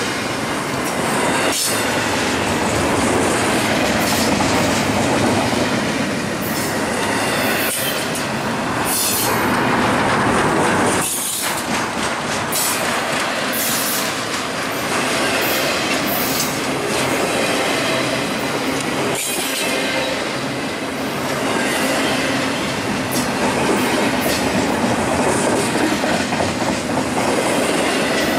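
Double-stack intermodal well cars rolling past close by: a steady rumble of steel wheels on rail, with clicks as wheels cross rail joints and short, repeated high-pitched wheel squeals.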